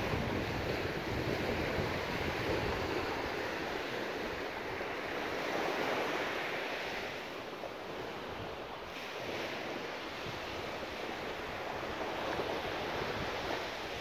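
Small sea waves breaking and washing up the beach, rising and easing in slow surges, with some wind rumble on the microphone in the first couple of seconds.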